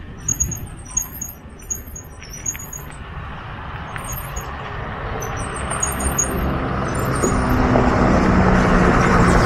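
A bus approaching and passing close by, its engine growing steadily louder, with a steady engine hum coming through over the last few seconds. High, repeated chirps sound in the background during the first part.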